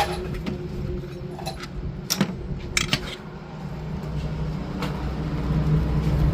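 Scattered sharp metallic clinks and taps of hand tools and bolts against the engine as the tappet (valve) cover is unbolted, over a steady low hum.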